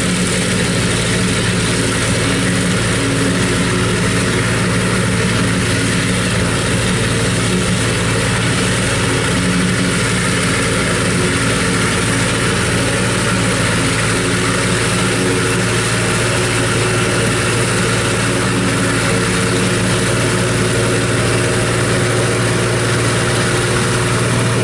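New Idea 705 Uni System self-propelled forage harvester chopping standing corn for silage, its engine and chopper running steadily under load while it blows the chopped corn into a trailing wagon.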